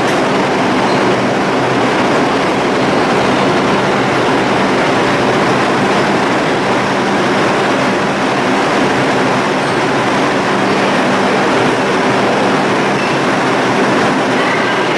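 New York City subway train running through the station, a steady loud rumble of steel wheels on rail. Thin high tones join in near the end.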